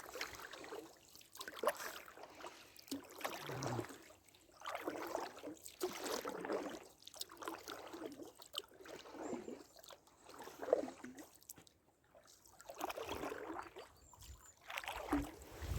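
Oars dipping and pulling through the water as a small boat is rowed, with a splashing stroke about every one and a half to two seconds.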